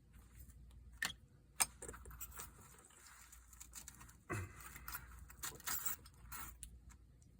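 Lock pick and tension wrench working in a SEPA 5000 dimple lock: two sharp metal clicks about a second in, then scattered ticks and light metallic scraping and rattling.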